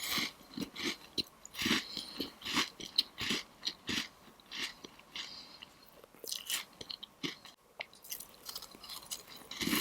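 Close-miked crunching and chewing of crispy Chinese pastry: a bite right at the start, then a rapid, irregular run of crackly crunches with a short pause a little past the middle.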